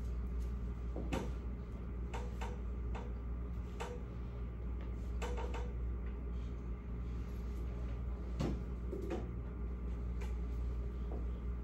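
Classroom room tone: a steady low hum with scattered small clicks and knocks at uneven intervals, the sharpest about a second in, around five seconds in, and about eight and a half seconds in.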